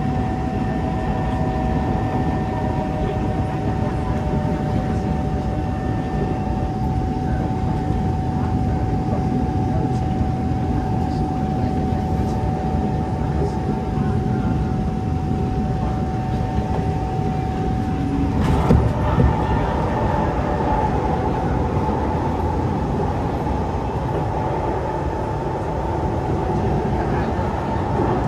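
Singapore MRT train running, heard from inside the carriage: a steady rumble of wheels and motors with a steady whine. About two-thirds of the way through the whine cuts off at a brief thump, and the rumble changes in tone after it.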